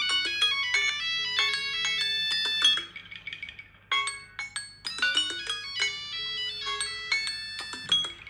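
Smartphone ringtone playing a melody of short bell-like notes. The phrase stops about three seconds in and starts again a second later.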